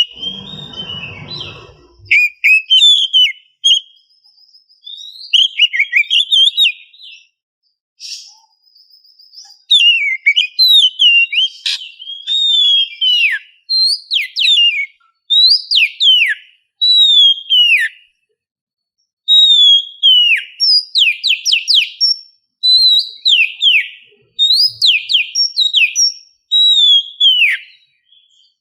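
Oriental magpie-robin (kacer) singing loud whistled phrases, many of them quick falling notes, in bursts with short pauses between. A brief low rustle sounds in the first two seconds.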